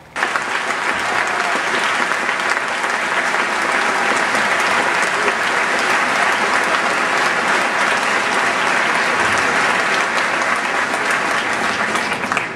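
Large audience applauding: dense, steady clapping from many hands that cuts in suddenly.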